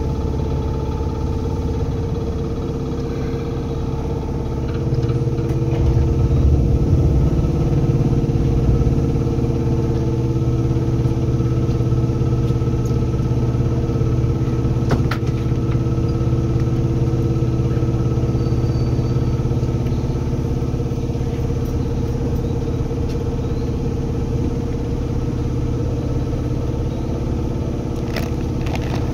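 Seibu 2000 series electric train car heard from inside, over its HB-2000 air compressor: a steady rumble with humming tones that grows louder about five seconds in, with a single sharp click near the middle.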